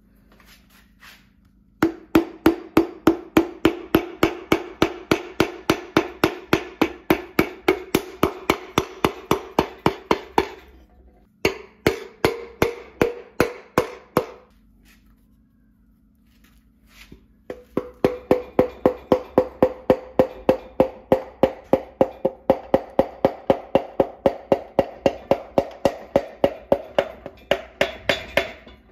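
Rapid light hammer taps, about four a second, driving a piston down into a cylinder bore of a Jeep 4.0 inline-six stroker block. The taps come in three runs with short pauses between them, each tap with a short ringing tone that rises slightly in pitch during the last run.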